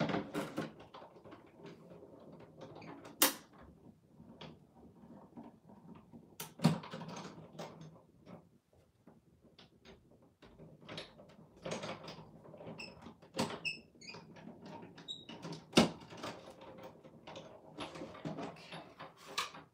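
Hand-cranked die-cutting machine running a plate sandwich with a metal tag die through its rollers, cutting a tag from Bristol board. Plastic cutting plates knock and click, the rollers creak, with a few sharp knocks and a few brief squeaks partway through.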